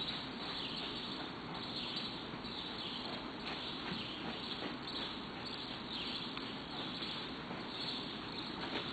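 Outdoor ambience: a steady noise bed with short high chirps repeating about once a second, and a few faint knocks.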